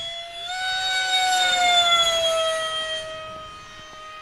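Electric ducted-fan model jet in flight: a high, steady whine that swells to its loudest about two seconds in, then falls slightly in pitch and fades.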